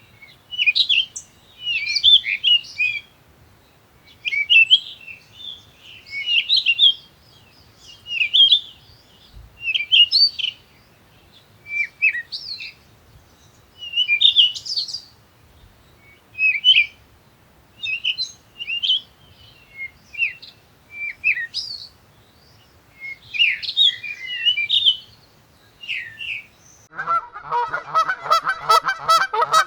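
A songbird singing in short, high chirping phrases, roughly one a second with brief gaps. About three seconds before the end it gives way to geese honking.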